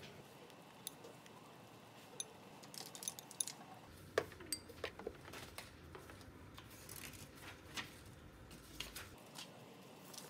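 Chopsticks and a ladle clinking against the hot pot and a small bowl while stirring broth and lifting noodles: faint, scattered light clicks, the loudest about four seconds in with a short ring.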